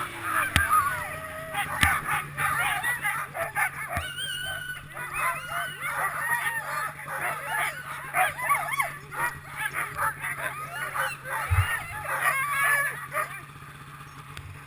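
A team of sled dogs yelping and barking excitedly in a chorus of many overlapping short, high calls, over the low steady idle of a snowmobile engine. The calls stop about a second before the end, leaving the engine hum.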